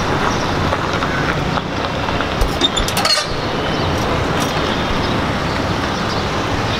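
Diesel tractor engine running steadily, with a few light metallic clinks about three seconds in.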